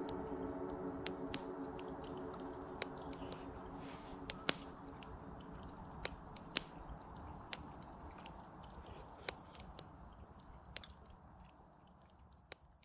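Irregular sharp clicks and crackles over a faint low rumble, all fading out steadily; a fading music tone dies away in the first few seconds.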